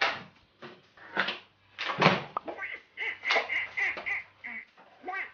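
Thin plastic packaging crinkling and crackling as a block of mortadella is pulled out of its plastic tray, with a few sharp crackles in the first two seconds. After that comes a run of short laughs.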